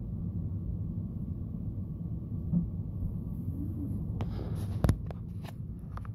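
Steady low rumble of a car stopped in traffic, heard from inside the cabin. From about four seconds in come a handful of sharp clicks and knocks, the loudest just before the five-second mark, as a camera is handled and pulled off its windshield mount.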